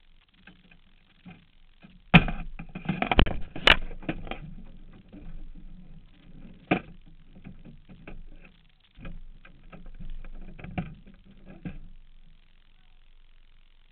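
Irregular knocks, thumps and rustling from the driver moving about and climbing out of the cramped cockpit past the camera, with no engine running. The loudest cluster of thumps comes about two to four seconds in, with single knocks later on.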